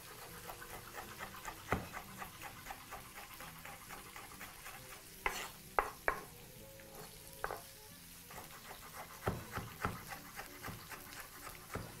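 Chef's knife chopping tomato on a wooden cutting board: quick, even knocks of the blade on the board, several a second, with a few louder strokes.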